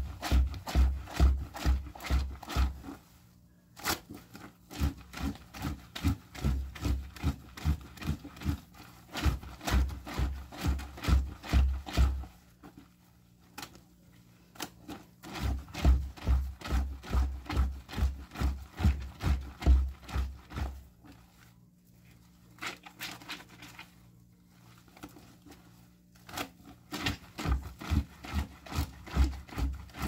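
Soapy wet cloth scrubbed by hand against the ridged washboard of a concrete laundry sink. It is a rhythmic rubbing and scraping, about three strokes a second, in spells of several seconds with lighter strokes between.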